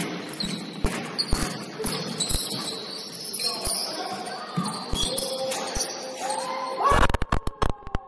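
A basketball being dribbled on a gym floor, about two bounces a second, echoing in a large hall. Near the end there is a quick burst of sharp knocks.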